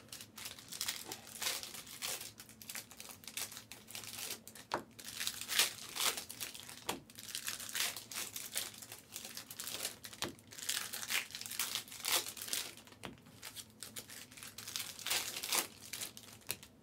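Foil trading-card pack wrappers crinkling and tearing as packs are opened by hand, an irregular run of crackles with a few sharper rips.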